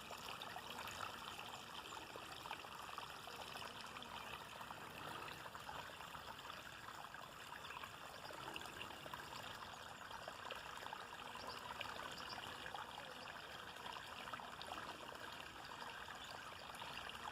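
Steady rain falling, with many small drop impacts over a constant wash of running, trickling water.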